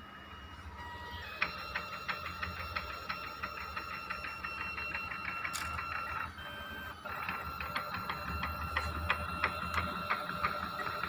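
Home-made 3D printer running a print: its stepper motors give a steady high whine with rapid, even ticking as the print head moves. The motors start about a second and a half in, stop for a moment about six seconds in, then carry on.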